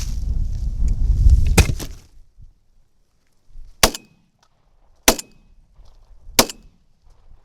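Shotgun fired three times in quick succession, about 1.3 seconds apart, at deer, each shot a sharp crack. A low rumble on the microphone fills the first two seconds.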